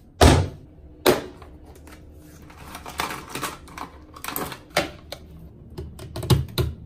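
Plastic handling noises from a Wahl hair clipper kit: a box and a hard plastic case knocked and opened, plastic guard combs and cord rattling, a run of sharp clacks and clicks. A plug is pushed into a wall socket near the end.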